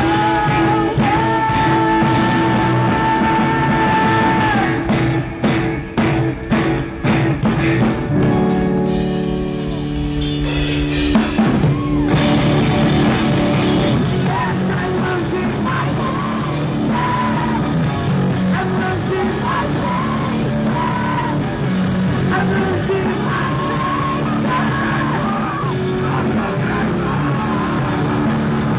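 A rock band playing live through a PA: drum kit, distorted electric guitars and bass, with the drummer singing lead and a second voice shouting. Around five to eight seconds in the band plays a run of sharp stop-start hits, then holds a chord, and about twelve seconds in the full band comes back in under the singing.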